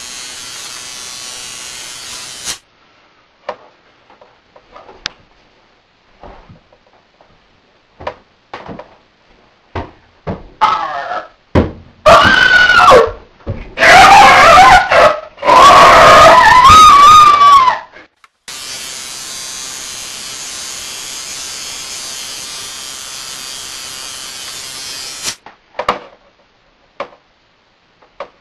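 Electric hair clippers buzzing steadily, then switched off about two and a half seconds in. Scattered clicks and handling knocks follow, then several seconds of very loud, wavering, screeching vocalising by a man. The clippers then run again for about seven seconds before switching off, with a few clicks after.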